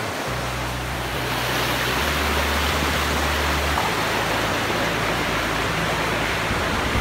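Steady rushing noise that grows louder about a second in and then holds, with a faint low hum underneath.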